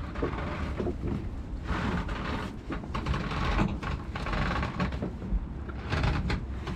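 Fishing net being hauled by hand into a boat: irregular stretches of rustling and scraping with small knocks, over a steady low rumble.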